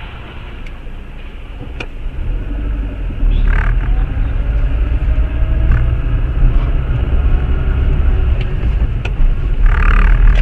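Car engine and road rumble heard from inside a moving car, growing louder about three seconds in, with a few short knocks and a brief rush of noise near the end.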